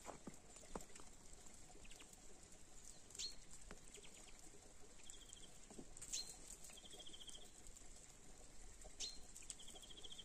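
Faint small-bird calls: three high notes that slide downward, about three seconds apart, and short fast trills. Scattered soft ticks of melting snow dripping from the trees sound between them.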